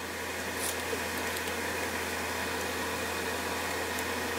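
A machine running steadily: an even whir with a low hum underneath.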